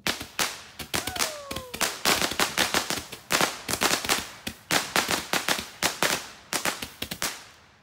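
Fireworks going off: a rapid, irregular string of sharp cracks and pops, several a second, with a short falling whistle about a second in.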